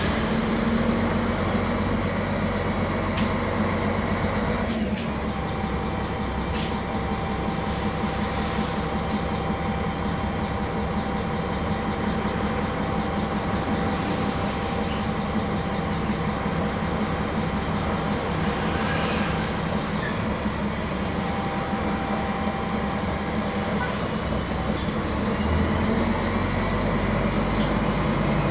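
Mercedes-Benz OM-457 LA six-cylinder diesel of an articulated city bus running steadily under way, heard from inside the bus. A thin steady whine comes in about five seconds in and fades near the end, as the low engine note grows stronger again.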